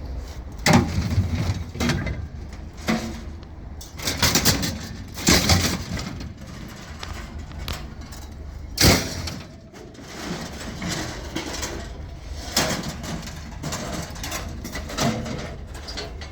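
Irregular knocks, clatter and scraping as a scrap dishwasher is handled and lifted in for loading, with one sharp bang about nine seconds in.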